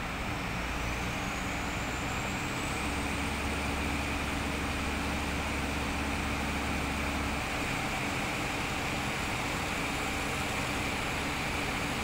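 A heavy diesel engine of construction machinery running steadily at low revs, its hum louder for a few seconds in the middle, over the steady rush of river water.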